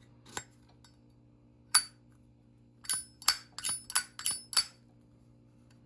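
Metal Zippo lighter cases and inserts clicking and clinking as they are handled: two single clicks, then a quick run of about six sharp, ringing clinks in under two seconds.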